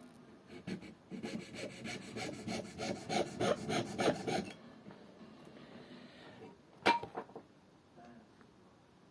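A hand tool worked on wood in quick back-and-forth strokes, about four a second for three or four seconds, then fainter scraping and one sharp knock about seven seconds in.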